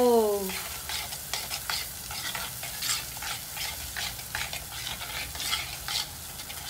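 A spoon stirring and scraping thick ground curry-leaf paste around a clay pot, in repeated strokes a few times a second, over a steady sizzle of the paste frying in oil.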